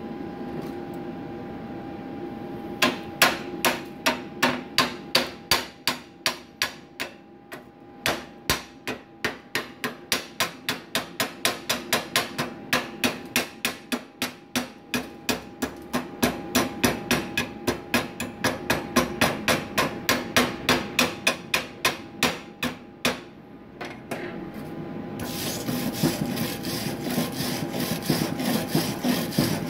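Chipping hammer striking a fresh stick-weld bead, knocking the slag off an LB-52U electrode's weld in quick sharp blows, about three a second. After a short pause near the end, a wire brush scrubs the bead clean in a fast continuous scratching.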